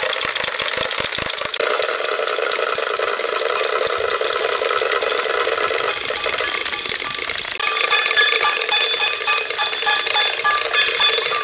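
Wooden Easter rattles (Klappern) cranked by children, a loud continuous rapid clatter that stands in for the silent church bells; about seven and a half seconds in it switches abruptly to a louder, somewhat ringing clatter.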